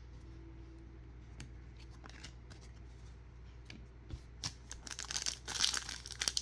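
A trading-card pack wrapper being torn open by hand, crinkling and tearing. It starts about four and a half seconds in after a few faint taps, and grows louder toward the end.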